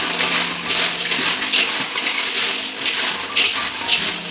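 Hands rubbing and turning a heap of small hard pieces in a large stainless steel basin: a dense rattling scrape against the metal, swelling in strokes about twice a second.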